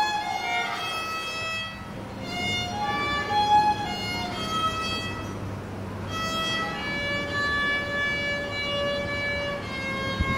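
Solo violin played by a young child, a simple bowed melody one note at a time: shorter notes at first, then a few long held notes in the second half.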